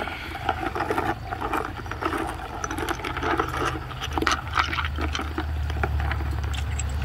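A hand sloshing and rummaging through soapy degreaser water in a plastic bucket, with stone slices knocking and scraping against each other under the foam. A steady low hum runs underneath and grows stronger about halfway through.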